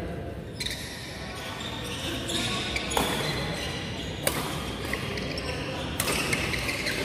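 Sharp hits on an indoor badminton court, about three, four and six seconds in, against chatter echoing in the sports hall.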